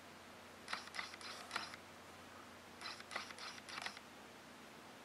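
Fine paintbrush stroking paint onto the molded roof grills of an N scale locomotive shell. Two quick runs of four or five scratchy strokes, about a second in and about three seconds in.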